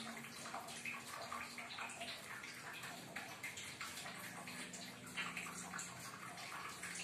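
Faint, irregular rustling and light scraping of hands dipping dough balls in water and rolling them in sesame seeds on a plate, over steady background hiss and a faint low hum.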